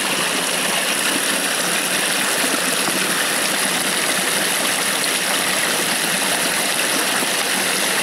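A small taiga stream running over a little waterfall: a steady, even rush of splashing water.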